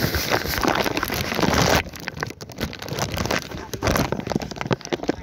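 Plastic bag crinkling and rustling right against the phone's microphone as the phone is slipped inside it. The dense rustle cuts off suddenly about two seconds in, giving way to scattered rubs and handling knocks.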